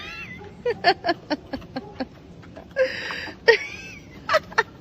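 A string of short, high vocal sounds, laughter-like and whimpering, with a breathy burst about three seconds in.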